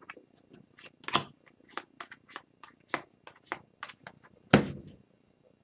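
Trading cards being handled and flipped through by hand: an irregular run of short, dry clicks and slides, a few a second, with one louder knock near the end.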